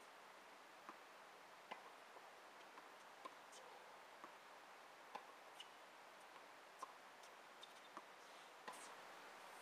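Tennis balls being struck by rackets and bouncing on a hard court during a rally: faint, sharp pops about one to two a second over a low steady hiss.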